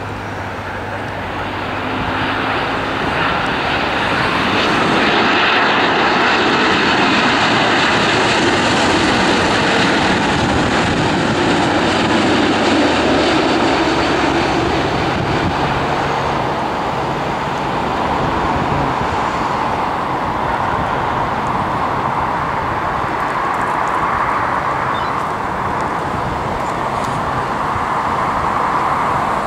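Boeing 787-8 Dreamliner's twin turbofan engines at approach power as the airliner passes low on final approach: a loud jet rush that swells to its loudest about five to thirteen seconds in, drops in pitch as it goes by, then carries on as a steadier rush while the plane flares over the runway.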